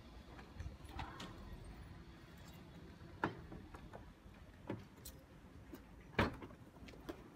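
Sharp clicks and a knock from a car's rear tailgate being unlocked and its latch released, the loudest about six seconds in, with a few smaller ticks around them.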